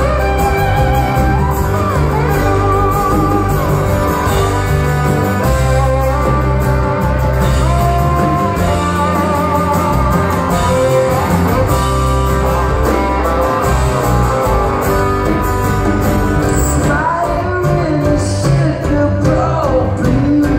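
Live rock band playing: guitars, bass and drums with singing over them.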